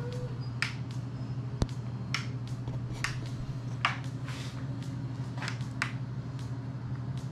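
A single sharp click about a second and a half in, a light switch being flipped on, over a steady low electrical hum, with scattered soft ticks and clicks.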